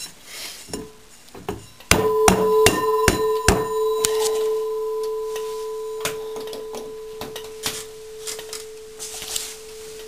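Old potter's wheel running on freshly replaced bearings: a steady, loud whine from the drive comes on suddenly about two seconds in, with a few evenly spaced knocks as it starts, then fades gradually. It is still loud but running smoothly, no longer the blown-bearing noise.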